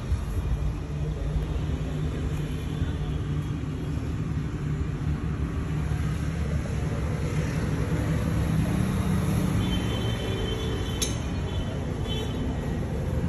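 Steady low rumble of road traffic and vehicle engines, with a single sharp click about eleven seconds in.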